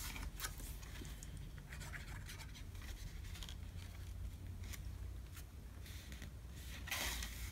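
Faint rubbing and scratching of paper as a patterned paper mat is laid onto a cardstock panel and smoothed down by hand, with a few light taps and a slightly louder rub near the end.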